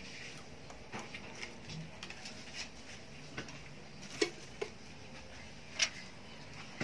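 Sparse light clicks and crinkles of hands handling cheese slices, peeling them from their thin plastic separator sheets and laying them onto macaroni in a disposable aluminium food pan. Two sharper clicks stand out, one past the middle and one near the end.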